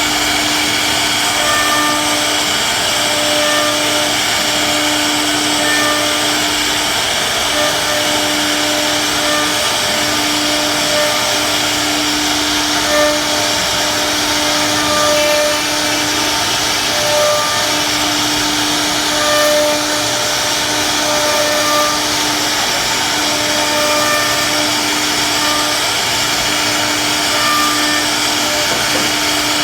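CNC wood router running steadily while carving, with a humming tone that starts and stops every second or two as the machine moves.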